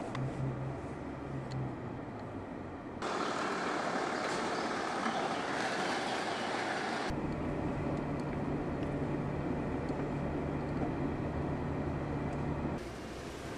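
Mercedes-Benz G-Class SUV on the move: a steady low engine hum. About three seconds in, a louder rushing noise of the tyres rolling over a ribbed steel ramp takes over. From about seven seconds a steady engine drone returns, which drops quieter near the end.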